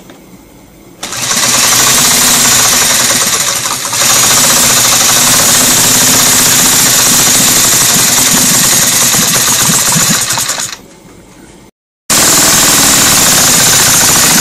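An electric drill used as a starter spins a handmade scale-model V-twin engine over: a loud, steady motor noise starting about a second in, with a short dip about four seconds in. It drops off near eleven seconds and, after a brief break, the same loud engine noise carries on.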